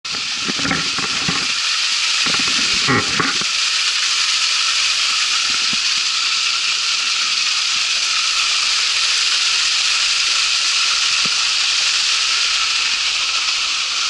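Waterfall's falling water and spray making a loud, steady hiss. A few brief low bumps in the first three seconds.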